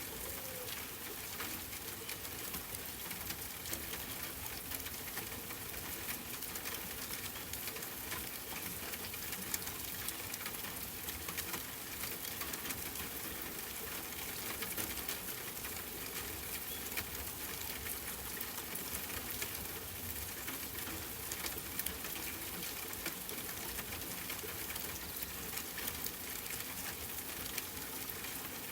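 Steady rain pattering, a dense spray of fine droplet ticks over an even hiss, with faint bird calls mixed in.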